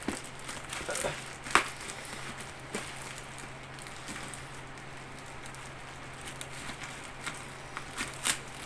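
Clear plastic packaging bag crinkling and crackling as fingers pick and pull at it to tear it open, with a sharp crackle about one and a half seconds in and another near the end, over a steady low hum.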